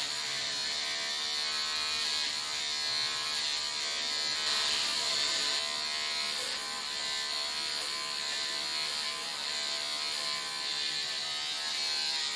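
Electric hair clippers running with a steady buzz as they cut short hair.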